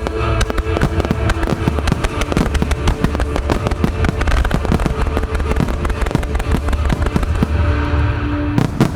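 Starmine fireworks finale: a dense, continuous barrage of shell bursts and crackle, many reports a second. A few heavier booms come near the end.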